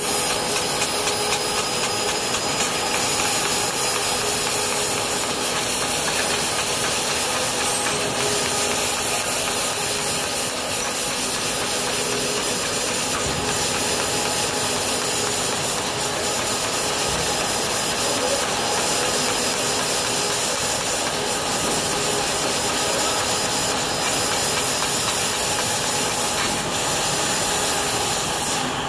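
Fiber laser cutting machine cutting sheet metal: a steady hissing rush of assist gas from the cutting head as it works, with the machine running underneath, unbroken throughout.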